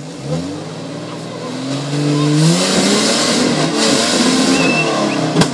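Off-road 4x4's engine revving hard, its pitch climbing over the first two seconds and then held high under a loud rushing noise. A single sharp bang comes near the end.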